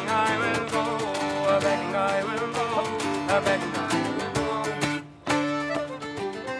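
Irish folk band playing an instrumental passage: whistle and fiddle carrying the melody over accordion, strummed acoustic guitars and bodhrán. About five seconds in, the band drops out for a moment, then comes back in together.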